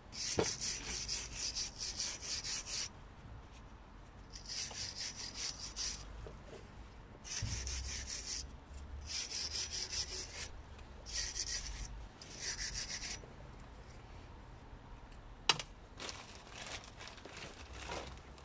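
Hand wire brush scrubbing rust off the steel face of a rear wheel hub, cleaning it before a new brake disc goes on. The strokes are rapid and come in about six bursts with short pauses. There is a single sharp click about fifteen seconds in, and fainter scrubbing follows it.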